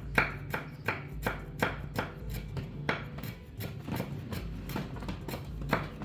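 A steady run of sharp knocks, about three a second.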